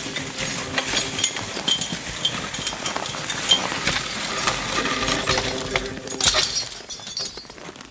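Fjord horse hauling a log on a skidding sled over snow: hoof steps, with harness and metal sled fittings clinking and knocking. A louder clatter about six seconds in.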